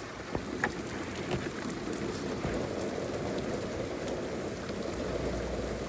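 Heavy rain falling steadily on a car's roof, heard from inside the car, with a few sharper single drop hits in the first second or so.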